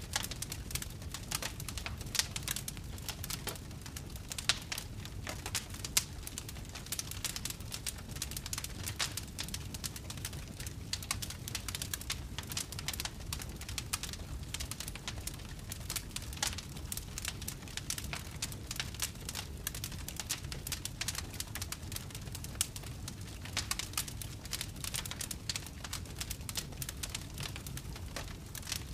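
Wood fire crackling: dense, irregular snaps and pops over a low steady rumble of the flames, with an occasional louder pop.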